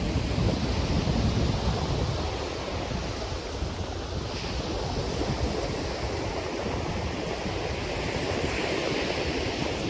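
Ocean surf washing onto the beach in a continuous hiss, with wind buffeting the microphone in low rumbling gusts, strongest in the first couple of seconds. A wave surges up more brightly near the end.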